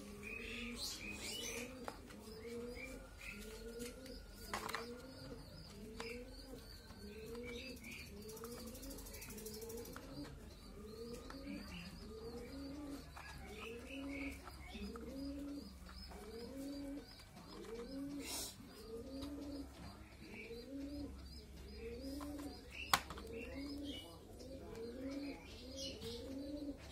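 A bird cooing over and over, a low arching coo about once a second, with faint chirps of small birds higher up. A single sharp click near the end stands out above it.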